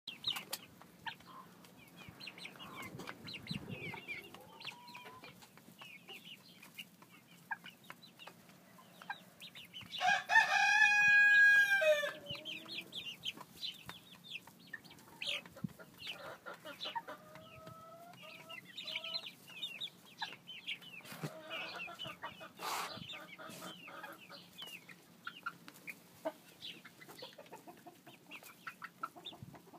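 Flock of nine-week-old Dominique and Red Dorking chickens peeping and clucking throughout. About ten seconds in comes one loud, drawn-out crow lasting about two seconds that drops in pitch at its end: a young cockerel's early crow.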